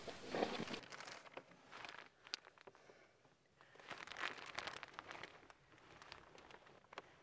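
Faint crinkling and crunching with scattered small clicks, fuller in the first second and again briefly around four to five seconds in.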